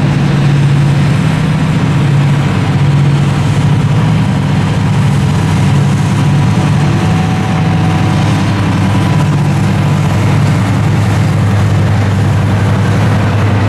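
Class 55 Deltic diesel locomotive's Napier Deltic engines, two-stroke opposed-piston diesels, running loud and steady with a deep throb as the locomotive draws its train past at close range.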